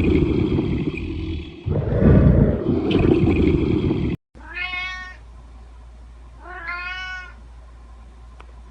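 A domestic cat meowing twice, each meow rising and then falling in pitch. It follows a loud animal roar that cuts off abruptly about four seconds in.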